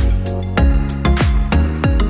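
Background music with a steady drum beat and held chords.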